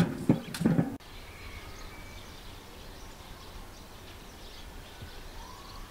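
Galvanized steel buckets clanking and ringing as they are handled and set down, a few sharp knocks in the first second. After an abrupt cut, quiet outdoor background with faint bird chirps.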